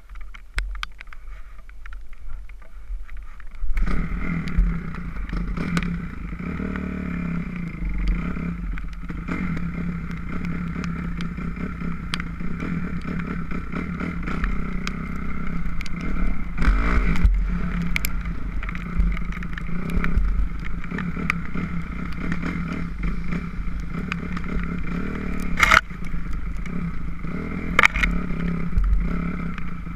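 2006 Kawasaki KX250F's four-stroke single-cylinder engine running, much louder from about four seconds in, with a few sharp clicks and knocks.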